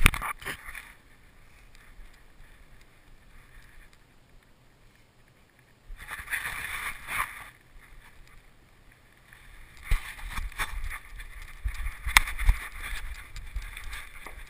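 Action camera strapped to a beagle, its strap and housing rubbing and knocking as the dog moves. There is a burst of rustling about six seconds in, then more rustling with a few sharp clicks from about ten seconds on.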